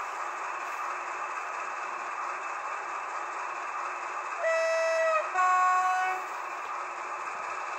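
Piko SM42 model diesel locomotive's sound decoder playing a steady diesel running sound while the model moves, with a two-note horn about four and a half seconds in: a lower note, then a higher one, each under a second long.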